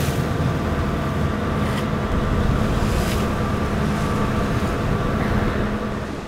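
A sport-fishing boat's engine running steadily, with wind and sea noise over it. Two brief sharp sounds come about two and three seconds in.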